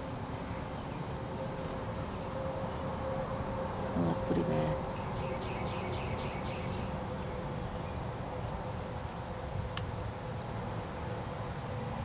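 Steady background chorus of insects buzzing and trilling, with a short low sound about four seconds in.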